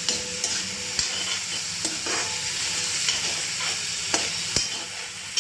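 Tomatoes, green chillies, onion and potato sizzling in hot oil in a pan while being stirred, the utensil knocking and scraping against the pan several times at irregular intervals.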